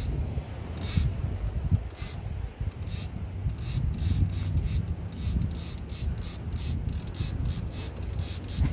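Fishing reel ratcheting in short rasping bursts as a hooked fish is fought on a bent rod, a few strokes at first and then about two to three a second, over a steady low rumble.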